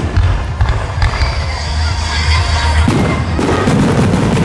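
Aerial firework shells bursting overhead: a continuous low rumble of booms, with a sharp bang about three seconds in followed by more thuds.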